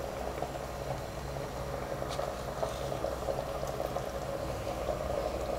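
Spiced biryani liquid with rice and quail bubbling at a steady boil in an open pressure cooker.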